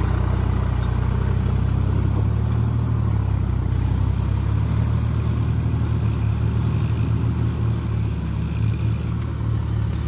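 Tractor engine running steadily under load as it drags a cultivator through wet soil on iron cage wheels. It pulls away from the listener, growing a little quieter near the end.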